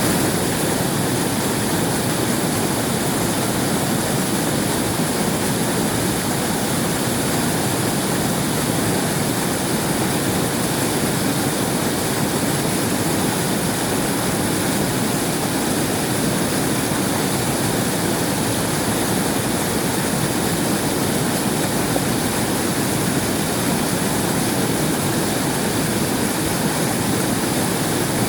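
River water rushing and flowing, a loud, steady roar of moving water that does not change.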